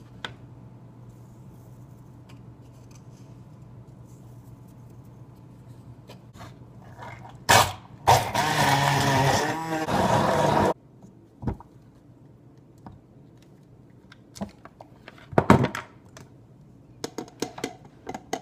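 Red KitchenAid immersion blender puréeing roasted red peppers in its tall beaker: a short burst about seven and a half seconds in, then a steady run of about two and a half seconds that cuts off suddenly. Several sharp knocks and clinks follow as the cup is handled.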